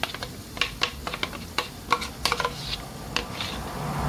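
A metal spoon scraping and tapping ground raw mango out of a grinder jar into a glass bowl, making a string of sharp, irregular clicks.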